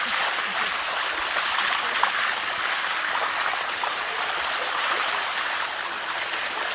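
Spring-fed waterfall water running and splashing steadily over rocks, a constant rushing hiss.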